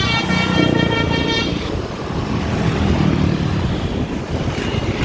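A bus's telolet basuri multi-tone horn sounds a steady blast that cuts off about a second and a half in, leaving the low rumble of the bus engine and road traffic.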